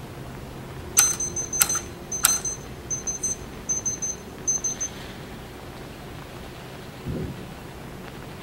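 A small electromechanical pencil machine: three sharp clicks with a high metallic ring about a second apart, then three short runs of rapid high ticking, and a soft low thump near the end, over a steady low hum.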